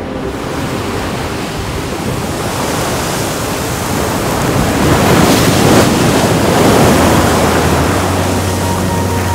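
Sea surf breaking on a rocky shore: a continuous rushing wash of waves that swells to its loudest about five to seven seconds in. Music fades back in near the end.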